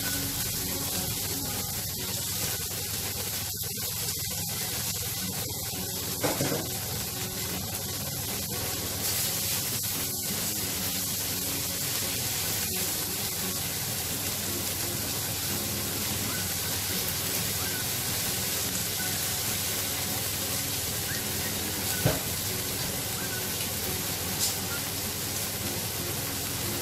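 Shrimp frying in hot oil on a sizzling plate: a steady sizzle, broken by a few short knocks.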